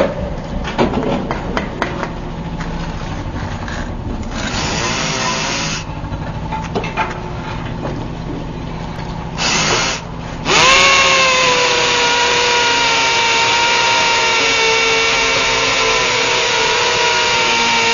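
Electric power drill: a stretch of clattering and scraping with two short bursts of hiss, then about halfway through the motor spins up and runs at a steady speed with a whine.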